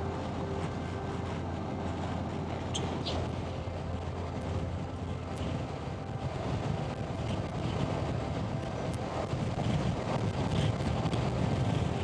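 Suzuki V-Strom 650's 645 cc V-twin running at highway cruising speed, heard through a muffled on-bike microphone under wind and road rumble. The low rumble grows louder in the second half.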